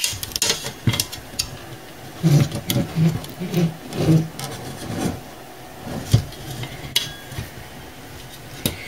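Handling noise from an opened computer power supply being turned over in the hands: scattered light clicks, taps and rattles from its metal case and circuit board, with a sharper knock about six seconds in.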